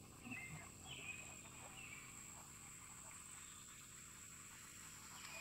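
Faint outdoor ambience: a few short bird chirps in the first second or so, over a steady high-pitched hum.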